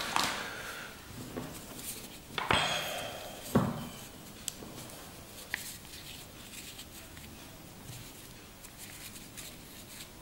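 Canvas watch straps being picked up and handled, their steel buckles clicking and knocking against each other and the table, with soft fabric rustle; two louder knocks come a few seconds in.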